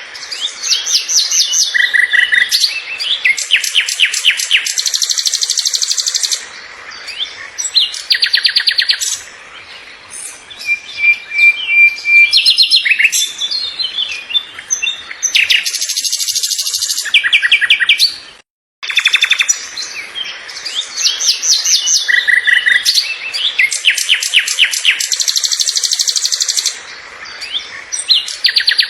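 A songbird singing a loud, varied song of fast, high-pitched trills and chirp series. The song drops out briefly about two-thirds of the way through, and the same sequence then starts over, as in a looped recording.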